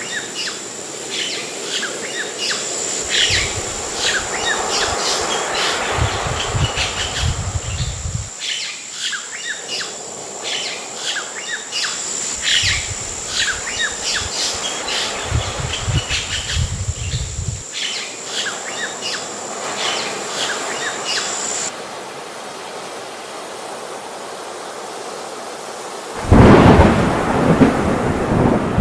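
Many birds chirping over a steady rush of water, with recurring low rumbles. About two-thirds of the way through the birdsong cuts off abruptly, leaving only the steady rush. Near the end a loud thunderclap breaks in with heavy rain.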